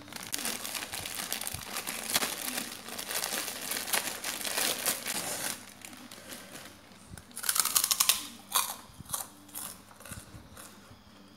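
Crinkling and rustling of crumpled material handled right at the microphone for about five and a half seconds, then a few short rustles about eight seconds in.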